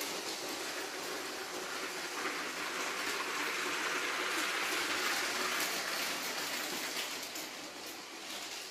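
Motorized Bluebrixx Koploper clip-brick model train running over plastic track: a steady rattling rush of its wheels on the rails. It grows louder toward the middle and fades near the end.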